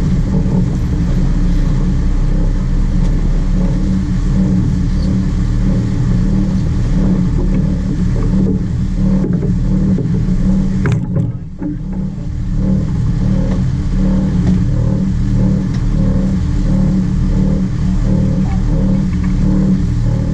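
A fishing boat's engine running steadily: a low drone with a faint, even pulsing in it. The sound dips briefly about halfway through.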